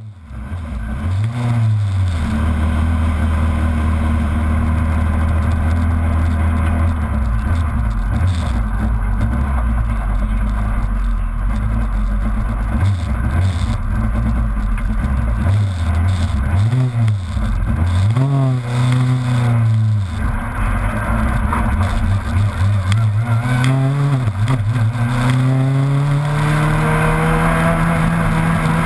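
Proton Super 2000 rally car's two-litre naturally aspirated four-cylinder engine running. It holds a steady low idle, with several quick blips of the throttle, then pulls away with the revs rising steadily near the end.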